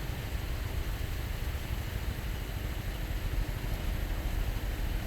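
Chinook helicopters' rotors and engines, a low, fluctuating rumble.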